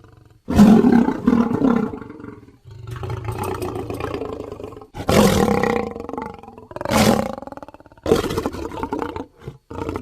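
African lion roaring in a series of separate calls, each starting and stopping abruptly. The loudest come about half a second in, at around five seconds, and just after seven seconds.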